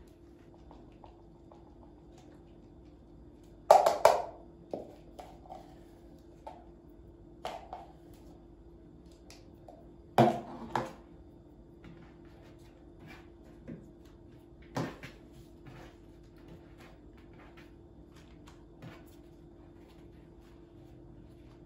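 Kitchen work: scattered clinks and knocks of dishes and utensils being handled and set down, the loudest about four and ten seconds in, over a steady low hum.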